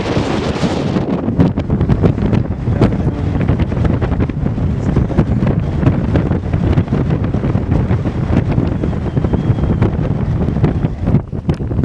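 Wind buffeting the microphone in uneven gusts: a heavy low rumble with crackling spikes.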